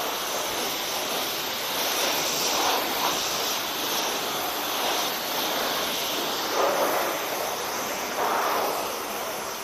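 Self-service car-wash high-pressure spray wand hissing steadily as the jet hits the car's rear window and body, swelling a little now and then as it moves across surfaces. This is the final shine rinse program.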